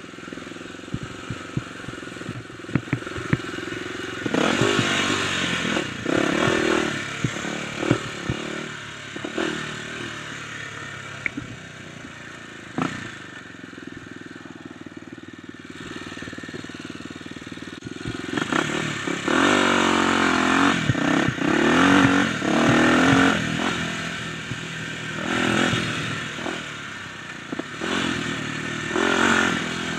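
Kawasaki dirt bike engine running under load off-road, the throttle opening and closing so the pitch climbs and falls, with loud surges about four seconds in, for several seconds in the second half, and again near the end. Scattered knocks and rattles come from the bike over the rough trail.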